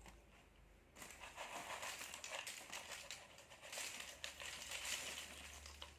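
Faint crinkling of plastic snack packets being handled, starting about a second in and going on irregularly until near the end.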